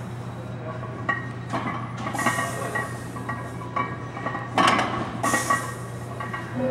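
Metal weight plates clinking on a loaded barbell as hip thrust reps are driven up and lowered: a string of short, ringing clinks, with two louder rushes of noise about four and a half and five seconds in, over a steady low hum.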